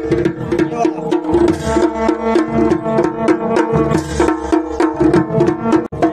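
Traditional Uttarakhandi dhol and damau drums played together in a fast, even rhythm, with the drum tones ringing between strokes.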